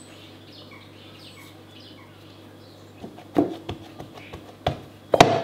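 Hands working wet scone dough in a plastic mixing bowl: a few sharp knocks and clicks of hands and bowl from about three seconds in, the loudest near the end. Before that, only a low steady hum and a few faint high chirps.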